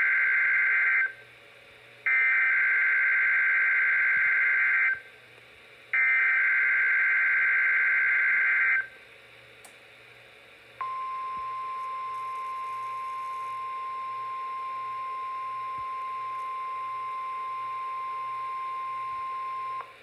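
NOAA Weather Radio alert signal through a Midland weather radio's speaker: the screeching SAME digital header bursts of a Required Weekly Test, three times with a second's gap, the first already sounding, followed about two seconds later by the steady 1050 Hz warning alarm tone held for about nine seconds. The receiver decodes the header as a required weekly test.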